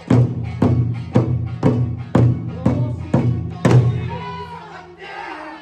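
Eisa drums struck in unison, eight heavy beats at about two a second, then a pause of about two seconds carrying faint calls before the drumming resumes.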